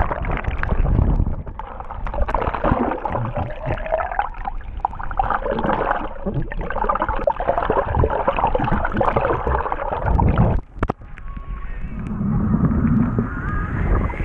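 Churning, gurgling seawater and bubbles heard from an action camera held under the surface by a towed banana boat, muffled with no high end, briefly dropping out about eleven seconds in.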